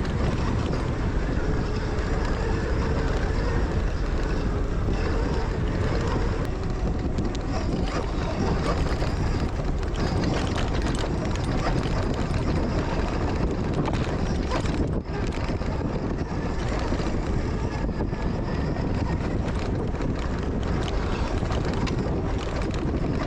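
Wind buffeting the microphone with the steady rumble of a Zero FX electric dirt bike riding over a rough offroad trail.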